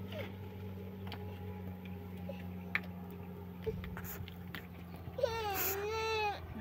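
Stones knocking lightly, a few separate clicks, as they are laid on a mud-and-stone wall, over a steady low hum. About five seconds in, a high, wavering cry lasts about a second and is the loudest sound.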